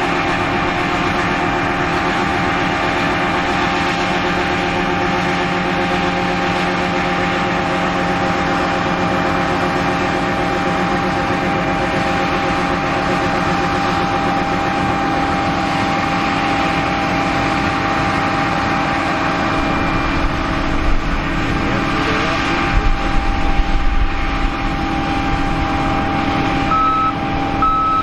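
Heavy harvest machinery engine running steadily at working speed, with a low rumble coming and going in the last several seconds. Near the end a reversing beeper starts, sounding about once a second.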